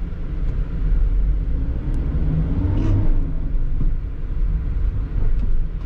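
Low, steady road and engine rumble of a car moving in slow city traffic, heard from inside the car, swelling briefly about three seconds in.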